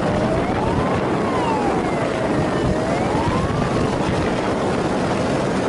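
Police siren wailing in a slow rise and fall, about one cycle every two and a half seconds, over steady loud engine and wind noise from a motorcycle riding at speed; the siren fades out about four seconds in.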